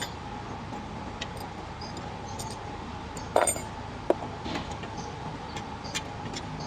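Scattered light metallic clinks and taps of hand tools and parts being handled, with the loudest knocks about halfway through, over a steady faint hum.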